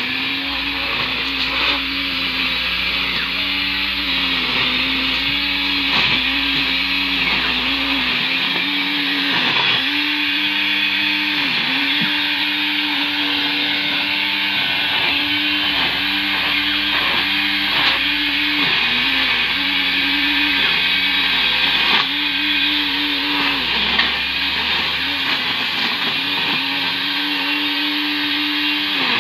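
Electric angle grinder rigged as a grass trimmer, spinning nylon line, running with a steady whine as it cuts grass. Its pitch dips briefly and repeatedly as the line bites into the grass, with a few sharp ticks.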